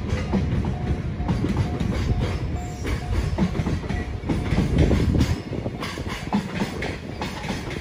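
Freight train of JR Freight container wagons rolling past a level crossing: wheels rumbling and clacking over the rail joints, with the crossing's warning bell ringing in short repeated dings over it. The rumble eases about five seconds in.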